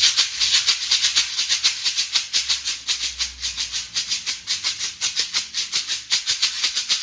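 Xequerê (shekere), a gourd shaker netted with beads, shaken in a fast, steady rhythm of about eight strokes a second.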